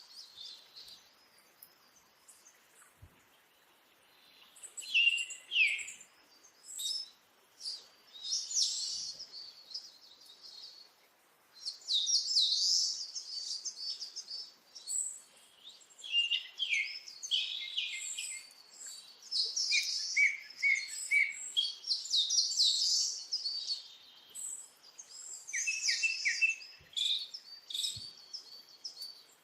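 Birds chirping and twittering in irregular bursts of quick, high notes, several calls overlapping at times.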